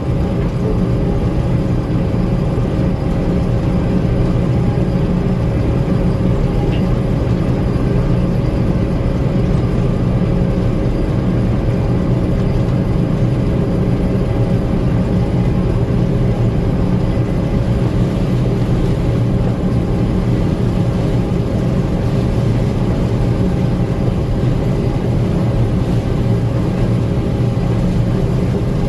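Gleaner M2 combine running at a steady pitch, a constant mechanical drone with no change in speed.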